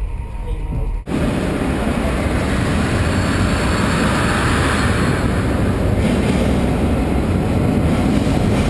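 Low rumble inside a moving train carriage. About a second in it cuts suddenly to loud, steady noise under a large station train shed.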